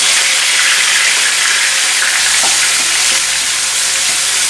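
Ground onion paste sizzling loudly in hot oil in a frying pan just after being poured in, with a few light scrapes of a spatula stirring it.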